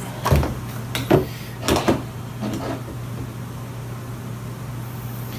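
Apple Magic Mouse's white cardboard box being opened, its lid sliding off the base in four or five short scraping rubs during the first few seconds, over a steady low hum.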